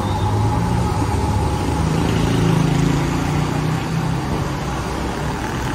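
Road traffic: motor vehicle engines running in the street, a steady low hum that swells a little about two to three seconds in.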